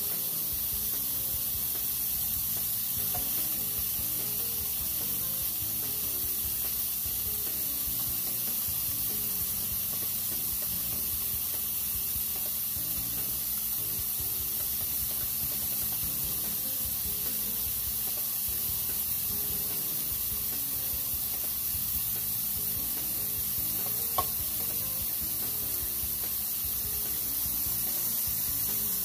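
Marinated beef bulgogi strips sizzling with a steady hiss on an open George Foreman electric contact grill. Near the end there is a single sharp click.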